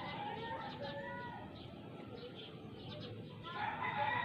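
Chickens clucking and calling, loudest near the end.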